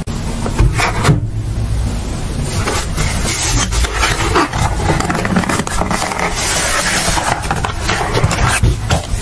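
Cardboard box being handled and opened by hand: irregular scraping and rubbing of cardboard with frequent sharp taps and knocks.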